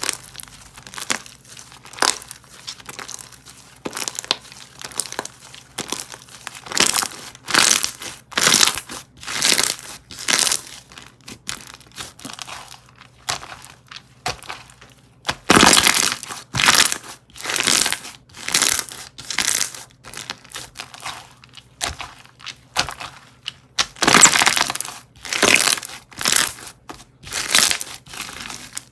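Crunchy cereal-themed slime squeezed and pressed by hand, giving repeated crackling, crunching pops about once a second, with louder squeezes in stretches.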